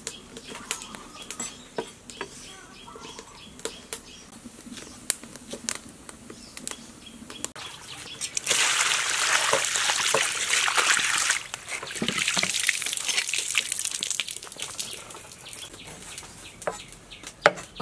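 Water pouring in a loud rush for about three seconds, starting about eight seconds in, then a softer stretch of water a second later; scattered small clicks and knocks and faint bird chirps run underneath.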